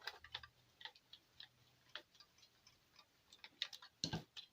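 Faint, irregular small clicks and taps of a screwdriver and nut as the replacement IC is screwed down on the keyboard's circuit board, with one louder knock about four seconds in.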